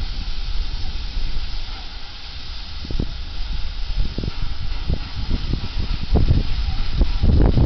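Ol49 steam locomotive hissing steam steadily over a low rumble, with irregular low thumps that grow louder over the last few seconds.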